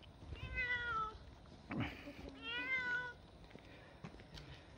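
Tortoiseshell cat on a leash meowing twice, each meow drawn out for under a second and sagging slightly in pitch, with a short sharp sound between them.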